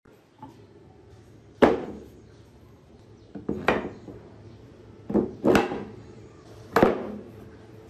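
Heavy wooden blocks and boards set down on a workbench and knocked against one another as they are stacked: about five separate wooden knocks, each with a short ring.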